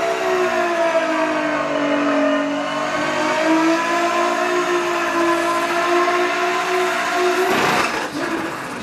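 Nissan GT-R R35 drift car's engine held at high revs while it spins its rear tyres in a smoky donut, a steady high engine note that dips slightly and climbs back. Near the end the steady note breaks off into a rush of noise.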